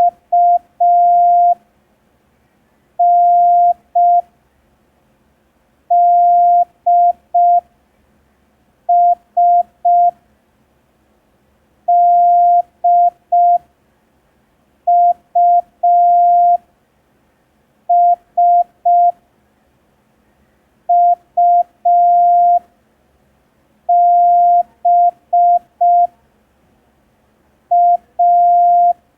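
Morse code practice tone: a single steady beep keyed in dots and dashes, sending about ten characters slowly, one every three seconds or so, as a receiving drill for the listener to identify.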